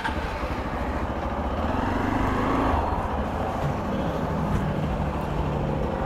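Hero Xpulse 200 BS6 single-cylinder motorcycle engine starting and idling, its note rising briefly about two seconds in before settling to a steady idle.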